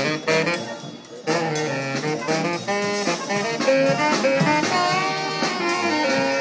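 French military brass band playing a march: saxophone, sousaphone, trombones and snare drums. The band breaks off briefly about a second in, then comes back in together.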